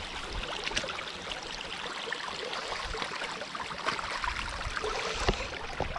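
River water flowing in a steady hiss, with scattered small clicks and splashes through it.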